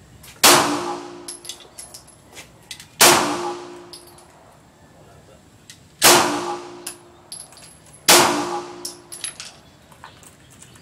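Four single gunshots, spaced about two to three seconds apart, each followed by a short metallic ring as it dies away.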